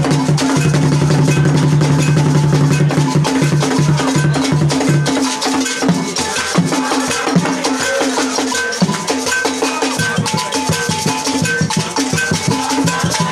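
Traditional ceremonial percussion ensemble playing for a dance: drums in a fast, dense rhythm with rattles, and short repeated ringing notes from about halfway through.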